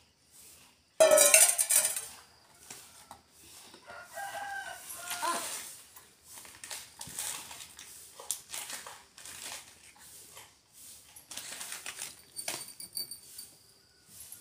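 A rooster crowing, loudest about a second in, with another call around four to five seconds in. Light clicks and taps come in between.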